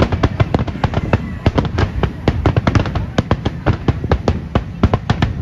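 Aerial fireworks shells bursting in a rapid barrage: many sharp bangs a second over a continuous low rumble.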